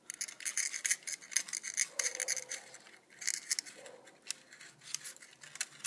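Soldering iron tip dragging copper desoldering braid over circuit-board pads to soak up old solder, making soft, irregular small crackles and scratches.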